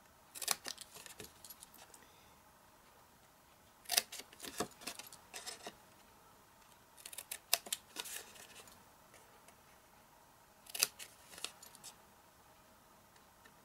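Scissors snipping through cardstock in four short runs of quick cuts, trimming small squares off the flaps of a box template.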